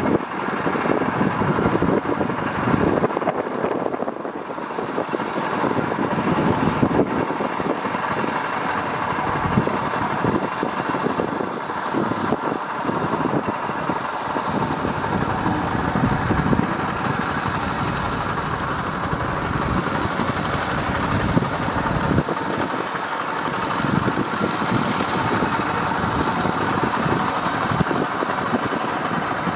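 Single-cylinder diesel engine of a walk-behind two-wheel tractor running steadily under load as it works through flooded paddy mud.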